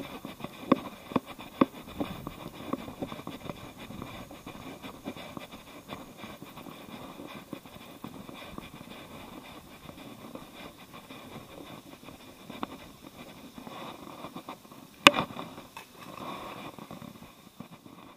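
Footsteps on grass as someone walks, with scattered small clicks and knocks, and one sharp, louder click about fifteen seconds in.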